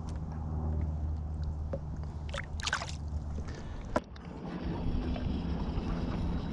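A boat's motor running with a steady low hum. A short rushing burst comes about two and a half seconds in and a sharp knock near four seconds; after the knock the hum settles at a different pitch.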